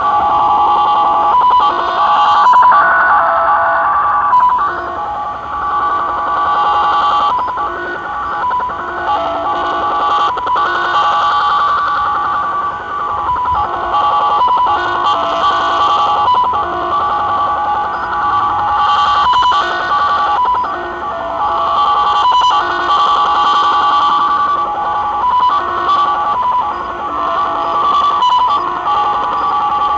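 The 'Japanese Slot Machine' (XSL) multi-tone data signal, received in upper sideband on 4154 kHz by a Tecsun PL-600 portable shortwave radio: a dense, constantly changing mix of beeping tones over static, with a brighter tone blip about every second and a half.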